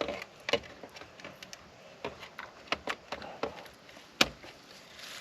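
A series of irregular knocks and clicks, the loudest a single sharp knock about four seconds in.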